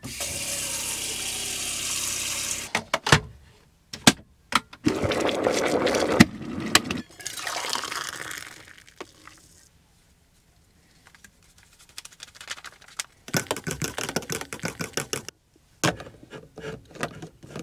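Water pouring into a container in a few separate pours, with clicks and knocks between them; near the end comes a run of quick ticks and knocks.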